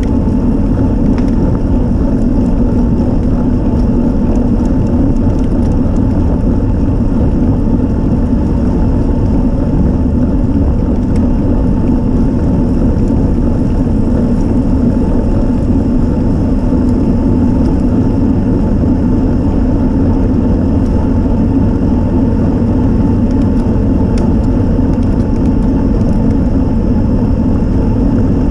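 Steady, loud wind rush on the microphone of a camera mounted on a road bike riding at about 14 mph, mixed with rolling road noise.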